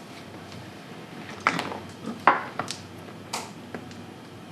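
Mahjong tiles clacking: about five sharp, separate knocks as tiles are set down and knocked together on the table, starting about a second and a half in.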